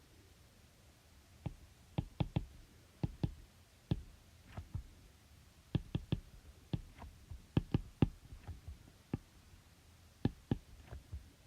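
Irregular series of sharp clicks and taps, about two dozen, starting about one and a half seconds in, over quiet room tone.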